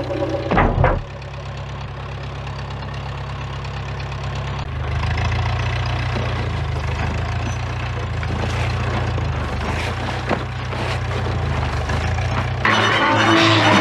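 An engine running steadily with a deep, even hum that grows a little stronger about five seconds in.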